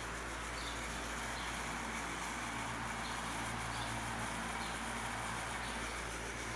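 Tron JatTron 50 cm pedestal fan running, its electric motor giving a steady low hum with a soft rush of air.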